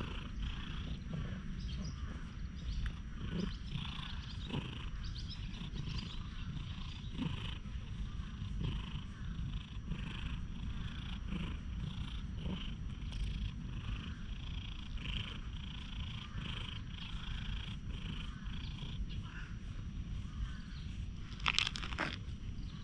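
Tabby cat purring steadily while being stroked, a low continuous rumble, with a few sharp crackles near the end.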